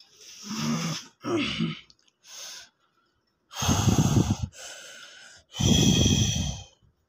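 A person breathing heavily: two short breathy gasps with a little voice in them in the first two seconds, then two longer, louder breaths about two seconds apart.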